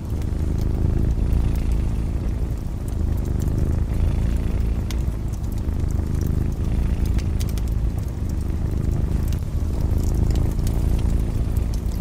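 Domestic cat purring close up, a low continuous rumble that swells and eases every second or two with its breathing. Light crackles and pops of a wood fire sound over it.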